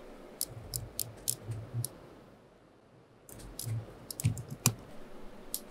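Scattered light clicks of a computer mouse and keyboard, about six in the first two seconds, then a second of dead silence, then more clicking.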